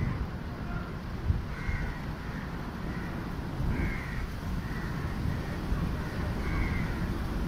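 Bird calls, short and repeated about once a second, over a steady low rumbling noise.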